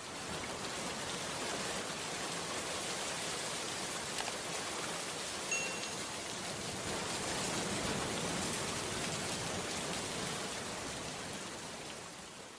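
Steady rain-like hiss that fades in at the start and out at the end. A faint click comes about four seconds in, and a brief high ping about a second and a half later.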